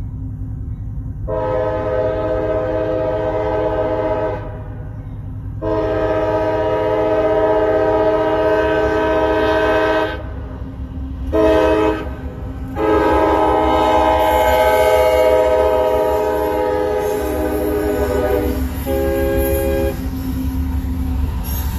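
Locomotive horn sounding the grade-crossing signal of long, long, short, long blasts over the steady rumble of a passing train. A brief lower-pitched horn note follows near the end.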